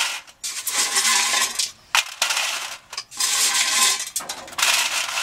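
Wood chips dropped by the handful into a disposable aluminum pan, rattling and clattering on the foil in several bursts of about a second each.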